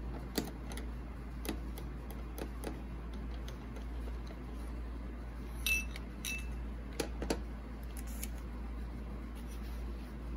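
Toy plastic kitchen pieces, a small frying pan, a toy sausage and a plate, being picked up and set down: a scattered series of light clicks and taps. Two of them, just past the middle, ring briefly, over a steady low hum.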